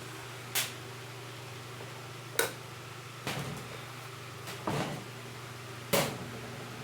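Five sharp plastic knocks and clicks at irregular intervals. These are the parts of an electric fan being handled and set down while it is taken apart for cleaning.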